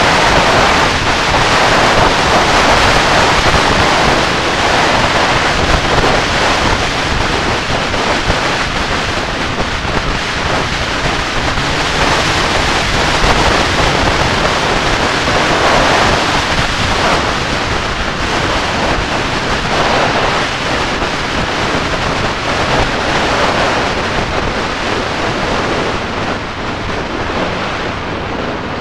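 Wind rushing over the microphone of a camera on a moving sport motorcycle: a steady hiss that swells and eases every few seconds and covers the engine.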